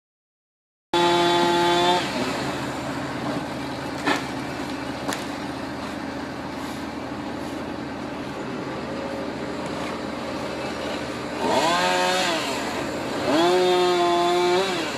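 Chainsaw revving to high speed in short bursts, once just after the start and twice near the end, dropping back to a lower steady running sound in between. Two sharp knocks come in the middle stretch.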